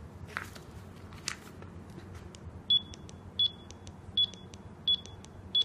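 Wepoy S92 handheld barcode scanner beeping as it scans a label: five short high beeps at one pitch, about 0.7 s apart, starting a little under 3 s in, each marking a barcode read. Two faint clicks come before the beeps.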